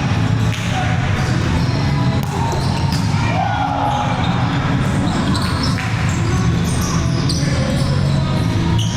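Indoor volleyball being played in an echoing gym: ball hits on hands and floor amid players' voices.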